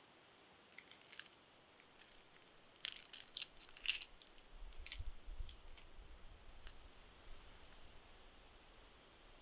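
Knife scraping and cutting a wild mushroom in the hand: a run of short, sharp scrapes and clicks, busiest about three to four seconds in, then fewer.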